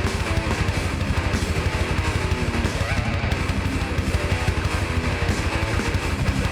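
Live heavy band playing an instrumental passage: distorted electric guitars strumming over fast, driving drums.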